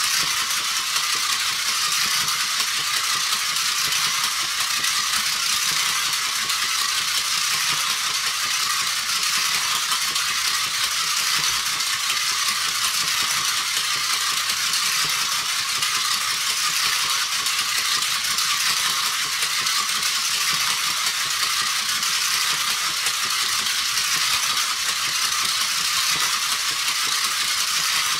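Battery-operated flying bald eagle toy running as it flaps and circles: its small electric motor and plastic gear train give a steady mechanical rattle.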